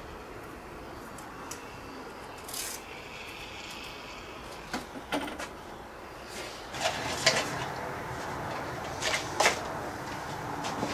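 Scattered clicks and knocks of hands handling the plastic and carbon parts of an octocopter frame and its plastic dome canopy, with a cluster of sharper clacks in the second half.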